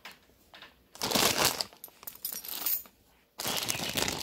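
Plastic salad-kit bag crinkling as it is handled, in two bursts: one starting about a second in and lasting nearly two seconds, another starting a little after three seconds.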